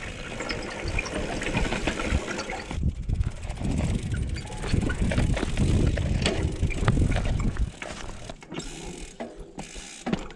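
Trek Remedy 8 mountain bike coasting down rock, its rear freewheel hub ticking, with rattles and knocks from the bike over the rough ground and wind rumble on the microphone. About three-quarters of the way through the rumble drops away, leaving mostly the quieter clicking.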